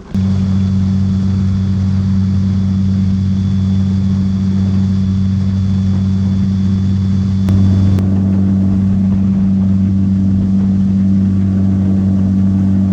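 An engine running steadily at constant speed, starting abruptly. About seven and a half seconds in there is a click and the engine note changes slightly.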